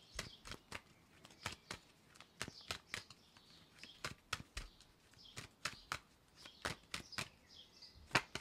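A deck of tarot cards shuffled by hand, one packet slipping against another: quiet, irregular light clicks and flicks, a few each second.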